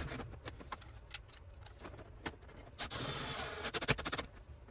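Cordless drill running in one burst of about a second and a half, about three seconds in, fastening an inline duct fan's mounting foot to the wall. Before it come a few light clicks and knocks of handling.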